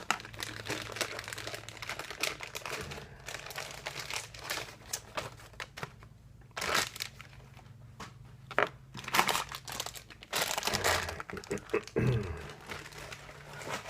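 Packaging crinkling and rustling as it is handled, in irregular bursts, louder in the middle and near the end, over a faint steady low hum.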